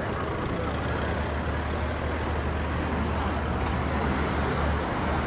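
City street traffic: a steady low rumble of motor vehicles passing.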